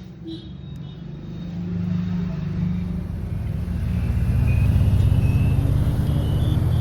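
A motor vehicle engine running nearby with a low steady hum, growing louder over the first few seconds.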